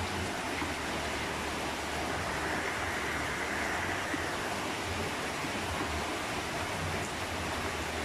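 Steady rushing noise with an uneven low rumble underneath.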